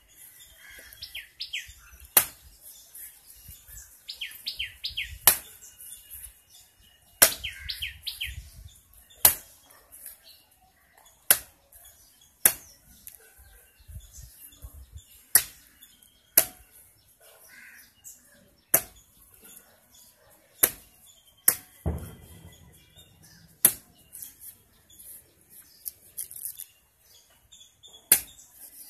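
A blade chopping into the husk of a fresh yellow coconut: sharp single chops, one every one to two seconds. A bird chirps between the chops in the first part.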